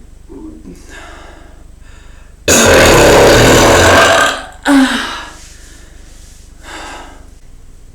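A person's deep, bass belch from air gulped into the chest, very loud and lasting nearly two seconds, about two and a half seconds in, followed moments later by a second, shorter belch.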